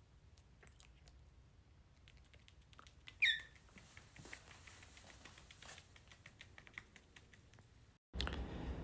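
Faint irregular small clicks and taps from a cockatiel, with one short falling chirp about three seconds in.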